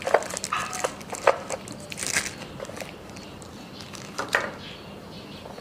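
Handling noise from a hard-shell camera carrying case: small clicks, taps and rustles as fingers work at the camera and fittings inside it. It is busiest in the first couple of seconds, with another short burst about four seconds in.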